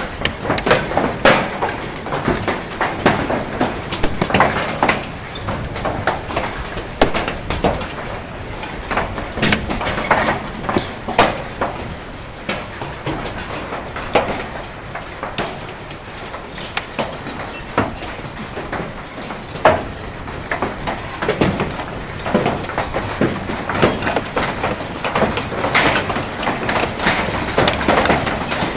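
Hailstones and rain hitting a corrugated metal roof: a constant hiss with many sharp, irregular clicks and bangs of stones striking the sheets.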